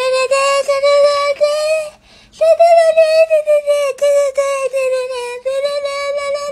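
A high voice singing long held notes, with a short break about two seconds in.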